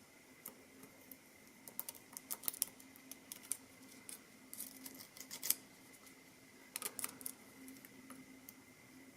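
Light metallic clicks and scrapes of a lock pick and tension wrench working inside a CX5 high security lock, coming in clusters about two seconds in, around five seconds and again near seven seconds.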